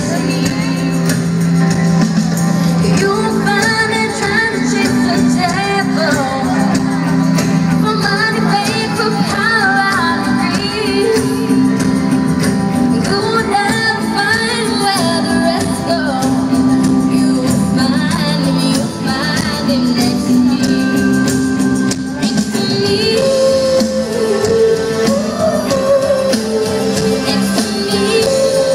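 Live pop band with drums, electric guitars and keyboards playing a song with singing over it. Heard loud through the PA from within the audience.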